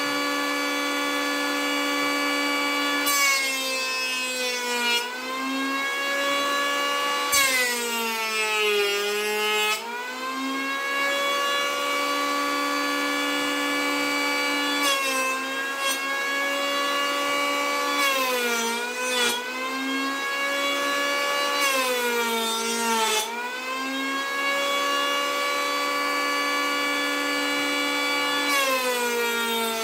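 Electric hand planer, mounted upside down in a wooden jig, running with a steady motor whine. About six times, as a wood block is pushed across the cutter head, the pitch sags under load and the blades rasp over the wood.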